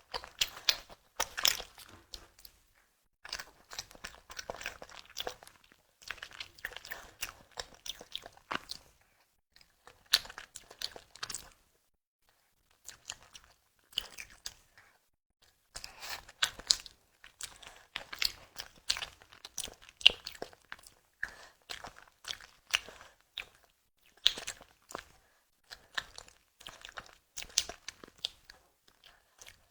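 Close-miked eating sounds of a person biting and chewing a tiger skin dessert: clusters of sharp mouth clicks and smacks in bursts of a few seconds, broken by short pauses.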